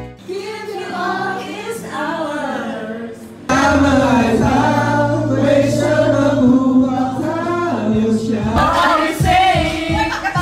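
A group of young people singing karaoke together into amplified handheld microphones over a backing track. It gets suddenly louder about three and a half seconds in, and a steady low beat comes in near the end.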